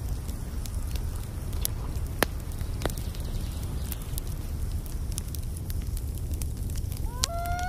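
Wood fire crackling: scattered sharp pops over a steady low rumble. Near the end a high pitched tone starts, stepping up and down in pitch.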